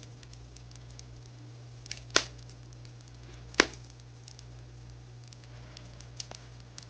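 Wood fire crackling: scattered small ticks with two loud sharp pops, about two seconds in and again about a second and a half later.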